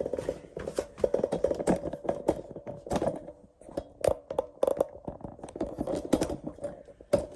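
Irregular clicks, knocks and rubbing of a camera being handled and repositioned.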